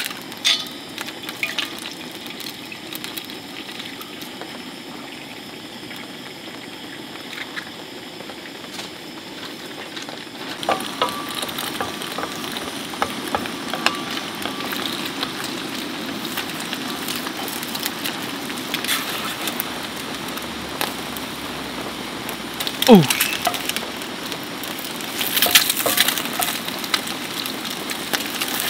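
Eggs frying in oil in a black steel pan. A few clicks of eggshell cracking come at the start, then a steady sizzle that grows louder about ten seconds in. A wooden spatula stirs and scrapes in the pan, with one sharp knock about two-thirds of the way through and a run of scraping strokes near the end.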